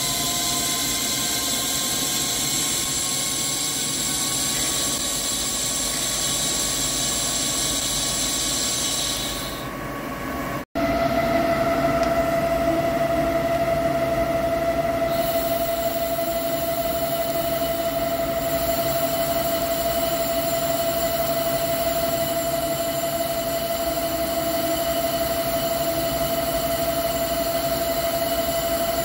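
CNC lathe cutting a ductile iron roll with a carbide insert: steady machining noise with a high, even whine. A brief dropout comes about eleven seconds in, after which a single steady whine stands out over the cutting hiss.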